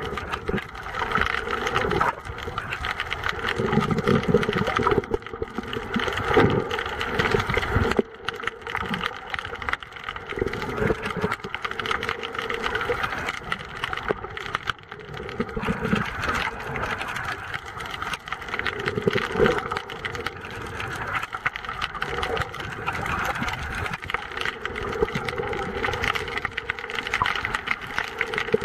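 Underwater noise picked up by a snorkeler's camera: a continuous crackling hiss with a steady hum, swelling and fading every few seconds, dropping suddenly in level about eight seconds in.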